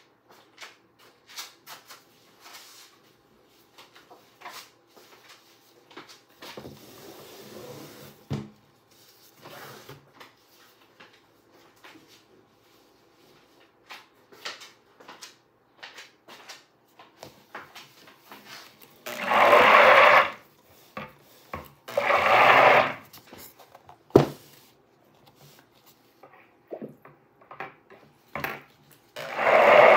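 A stick blender run twice in short bursts in soap batter, about two seconds and then one second, over light clicks of the bowl and utensils being handled. A single sharp knock comes a little after the second burst, and the blender noise starts again near the end.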